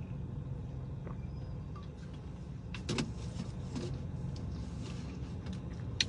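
Steady low rumble of a car heard from inside the cabin, with a few faint clicks about three seconds in.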